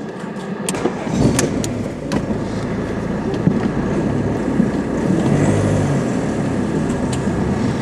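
Car engine running as the car rolls slowly forward, heard from inside the cabin, with a few light knocks about one, one and a half, and two seconds in and again near the end.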